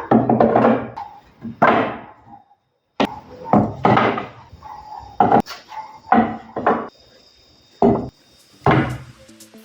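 A series of irregular knocks and bangs on wood, about ten over several seconds, with a pause of roughly a second near the start.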